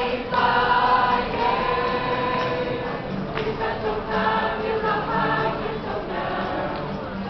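Street choir of many voices singing a Christmas carol, with sustained sung notes.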